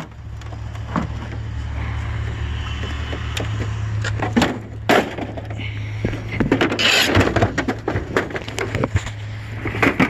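Idling pickup truck engine with a steady low hum under sharp knocks and clatter from hard plastic items, among them a CRT computer monitor, being handled and loaded into the cab. The densest clatter comes about seven seconds in.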